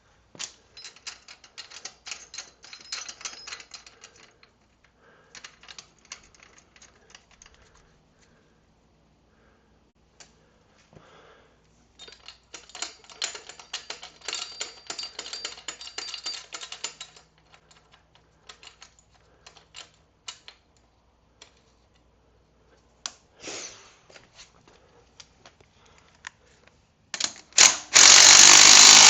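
Hand ratchet wrench clicking in several bursts of quick ticks while the motorcycle's axle and chain adjuster nuts are worked to set the chain tension. Near the end a much louder power tool starts up and runs steadily.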